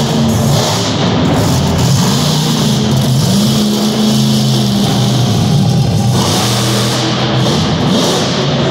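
Loud rock music over an arena sound system, mixed with a monster truck's engine revving, its pitch rising and levelling off several times as the truck drives and spins.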